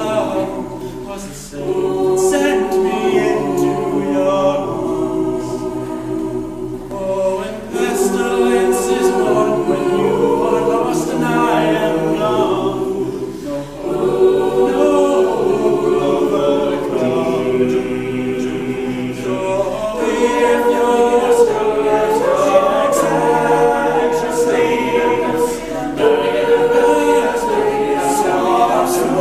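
Mixed a cappella group singing in harmony, several voices holding chords that move every second or two, with sharp clicks high up that sound like vocal percussion.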